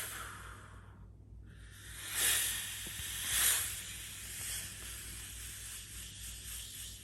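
Breathy, wind-like hissing swells made with the breath as part of a Sakha performance, two louder surges about two and three and a half seconds in, over a faint steady low hum.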